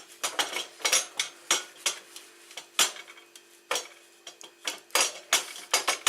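Motorcycle exhaust pipe being worked loose and pulled free of the bike: irregular sharp metal clanks and knocks, about two or three a second.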